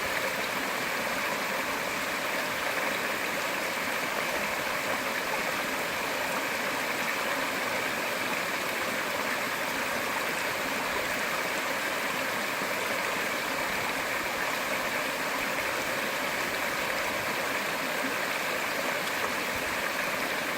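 Waterfall running: a steady, even rush of falling water with no change in strength.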